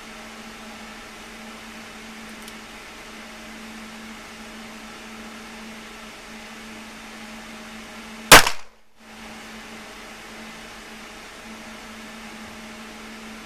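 A single handgun shot about eight seconds in, sharp and very loud, with the recording dropping out for a moment right after it. A steady faint hum runs underneath.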